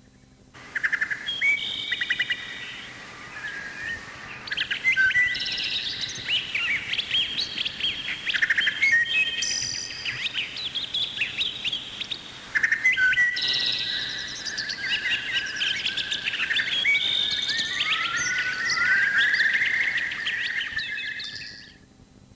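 Recorded birdsong sound effect: several songbirds chirping and warbling at once in a busy, overlapping chorus. It starts about half a second in and fades out near the end.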